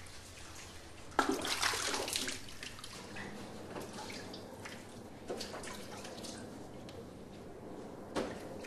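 Water splashing and pouring from an enamel washbasin over wet hair and faces. A louder splash comes about a second in, followed by smaller scattered splashes and drips.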